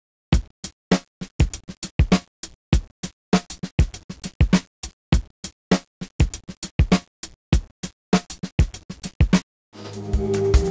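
Electronic intro music: punchy drum-machine hits in a choppy, stop-start pattern with short silences between them. In the last second it changes to a steady, sustained sound.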